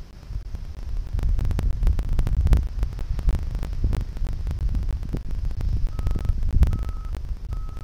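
Low, buffeting rumble of wind on the microphone, with crackles. About six seconds in, a vehicle's reversing alarm starts beeping steadily, a short high beep a little more than once a second.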